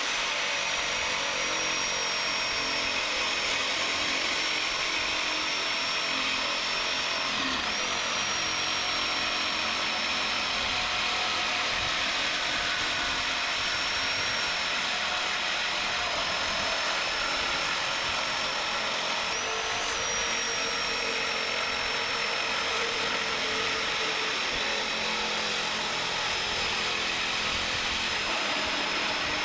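Reciprocating saw (Sawzall) running continuously as it cuts up the metal of a pool heat pump, a steady high motor whine over cutting noise that dips briefly about seven seconds in.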